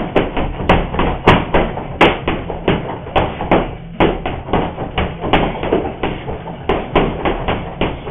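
Boxing gloves punching a heavy bag in quick combinations: a rapid run of sharp thuds, several a second, with short pauses between flurries.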